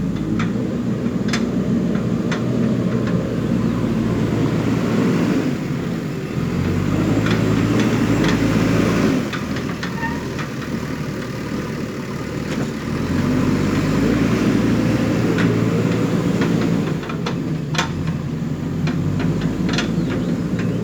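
Backhoe loader's diesel engine running under working load, swelling louder and easing off twice as the machine works, with scattered sharp metallic clicks and knocks.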